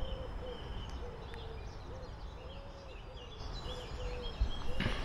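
Birds calling outdoors: a run of short, low, arched notes repeating every half second or so, with higher short chirps over a steady low background rumble.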